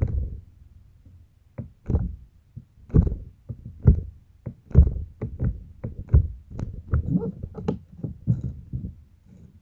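Slime being squeezed and poked by hand: a run of irregular soft squishes and pops, coming more quickly in the second half.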